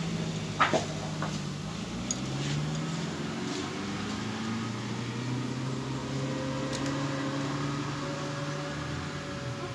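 A motor running steadily, its hum slowly rising in pitch. Two light clicks sound a little under a second in, while hands fit the cam chain and rollers on the motorcycle engine.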